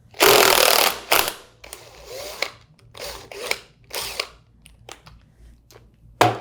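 Impact wrench loosening the impeller nut on a Waukesha 200 Series centrifugal pump shaft. It goes in one long burst of nearly a second, then several shorter bursts, followed by a few light clicks near the end.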